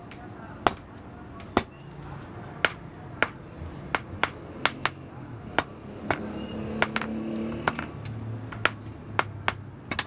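Hand hammer striking a red-hot iron bar on an anvil while forging: irregular blows about one to two a second, several of them leaving a high metallic ring.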